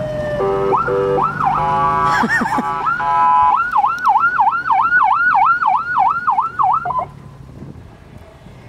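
Electronic police-style siren: a falling tone and a run of stepped chirps, then a fast yelp of about three rising-and-falling sweeps a second, cutting off about seven seconds in.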